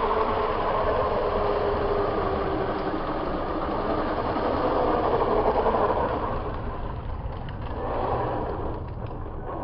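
Kyosho Fazer Chevelle RC car driving slowly across concrete: a steady mechanical running noise that eases off about seven seconds in.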